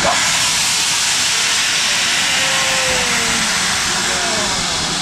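Loud steam hiss from the cylinder drain cocks of BR Standard 4 tank locomotive 80080, starting suddenly and holding steady, as the engine blows water out of its cylinders on setting off.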